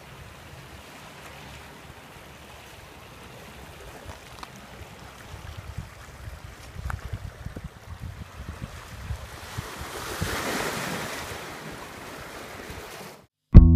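Small ocean waves washing over a rocky shore, with wind buffeting the microphone; a louder wash of surf swells up about ten seconds in. Near the end the sound cuts out and music with bass guitar starts abruptly.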